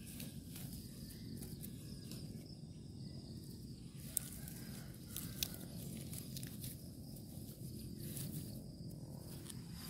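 Wet soil clods and dry rice straw being broken up and handled by hand, a light crackle and rustle over a steady low rumble, with two sharp clicks about four and five seconds in.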